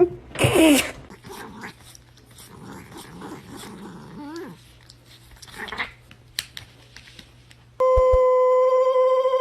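A dog gives a short loud yelp about half a second in, followed by softer whining and whimpering sounds. Near the end, a loud steady beeping tone starts and holds.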